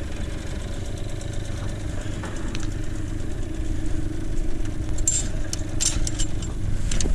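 Hangkai 6 hp two-stroke outboard motor idling steadily, with a few light clicks and rattles about five to six seconds in.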